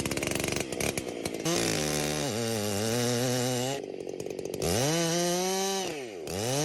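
Chainsaw engine ticking over at first, then revved up and down several times, its pitch rising and falling with the throttle.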